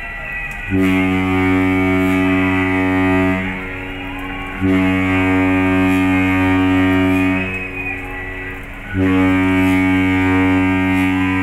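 Cruise ship's horn sounding three long, deep, steady blasts of about three seconds each, with a pause of about a second between them: a horn greeting between two passing ships.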